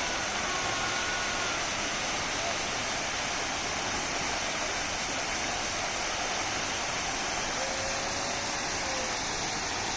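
Steady, even rush of a waterfall pouring into a pool, with a couple of faint thin tones near the start and again about eight seconds in.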